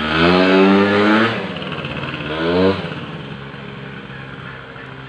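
Small two-stroke scooter engine revved twice, its pitch climbing over about a second each time, then dropping back to a lower, steady running note that gradually fades.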